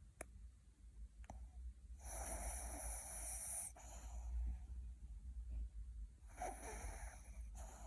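Sleeping puppy snoring: two long wheezy, hissing breaths, the first about two seconds in and the second near the end, after two faint clicks at the start.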